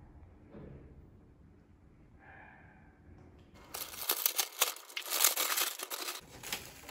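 Packaging crinkling and rustling as it is handled, a loud crackly stretch of about two and a half seconds that starts a little past halfway and stops shortly before the end, after a faint, quiet start.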